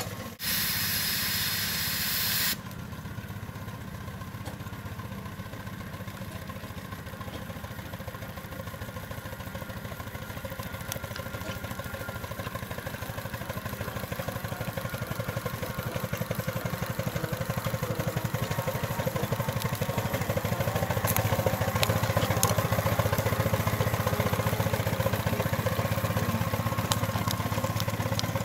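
Scale-model Case steam traction engine under way, its exhaust beating in a rapid, even chuff. A loud hiss of escaping steam comes in the first two seconds, and the engine grows louder after the middle as it passes close.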